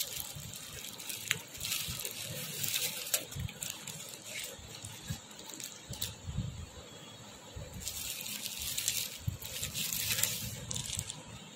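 Bubble wrap crinkling and rustling as a camera wrapped in it is handled and drawn out of a cardboard box, in two busy spells with a quieter stretch between.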